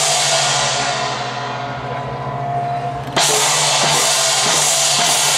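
Traditional Taiwanese gong-and-cymbal temple percussion. One crash rings and slowly fades over about three seconds, then a fresh loud crash a little after three seconds starts dense, continued ringing.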